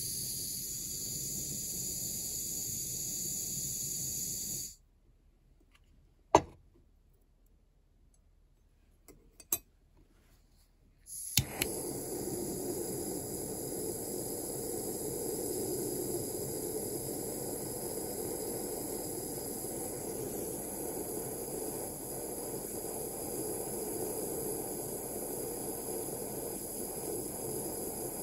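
Handheld gas torch burning with a steady hiss as it heats brass for soldering. The torch goes out about five seconds in, a few sharp clicks follow, and it relights with a click about eleven seconds in, then burns steadily again while the brass heats to a red glow.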